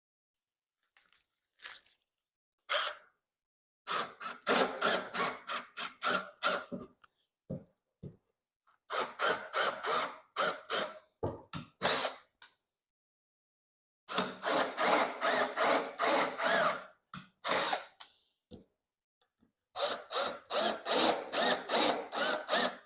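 Power drill driving screws with washers into wood in four separate bursts, each a rapid pulsing run with a faint high whine, stopping and starting between screws.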